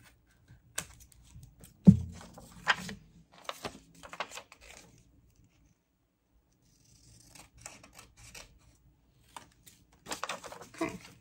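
Large scissors cutting paper: a series of separate snips over the first few seconds, the loudest about two seconds in with a dull thump. Fainter paper rustling and handling follow later.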